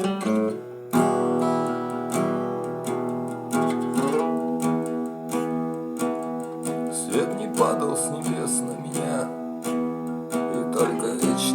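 Acoustic guitar strummed in steady chords as an instrumental passage of a song, with a brief break just before a second in before the strumming resumes.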